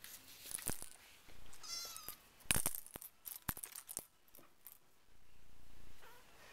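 A four-week-old RagaMuffin kitten giving a short, high mew about a second and a half in, among a scatter of sharp clicks and taps.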